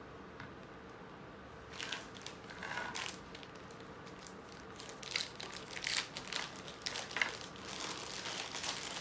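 Clear plastic packing bag crinkling as it is handled and parts are taken out of it, in irregular bursts that start about two seconds in and grow busier in the second half.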